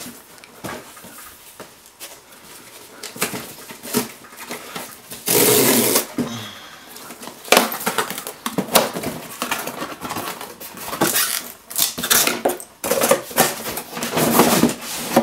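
Hands opening a product box: irregular rustling, clicks and knocks of cardboard and packaging being handled, with one louder, noisy burst lasting about a second around five seconds in.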